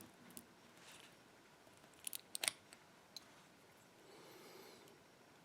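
Small metal lock parts clicking as an ISEO pin-tumbler lock cylinder is taken apart by hand: a quick cluster of sharp clicks about two seconds in, a single click a second later, then a faint scrape near the end.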